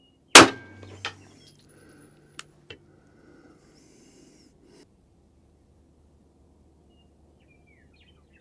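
A single 9mm pistol shot about a third of a second in, fired with a 147-grain Speer Gold Dot hollow-point load at about 1,017 fps, below the speed of sound. A much smaller click follows about a second later, then two light clicks.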